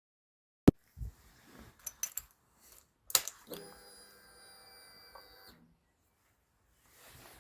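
Honda CB600F Hornet being readied to start: a few sharp clicks and knocks, including the ignition being switched on, then a steady electric whine for about two seconds that cuts off sharply, the fuel pump priming.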